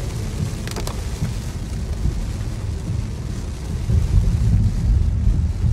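Heavy rain heard from inside a moving car's cabin, over a deep rumble of tyres on a wet freeway that swells louder about four seconds in. A short tap comes about a second in.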